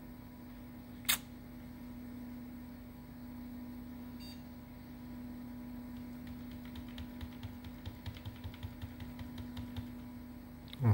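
Computer keyboard's Delete key tapped rapidly, about four or five clicks a second for several seconds, to enter the BIOS setup during the PC's power-on self-test, over a steady low hum. A single sharp click comes about a second in, and a brief faint beep around four seconds.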